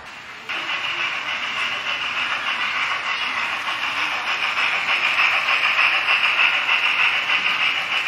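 O scale model steam locomotive and freight cars running past on the track: a steady hissing running sound that starts suddenly about half a second in and grows a little louder as the train comes by.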